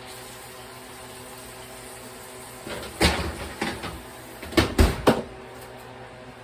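Kitchen clatter: a run of knocks and bangs about three seconds in, ending with three sharp hits, like cupboard doors and kitchenware being handled, over a steady low hum.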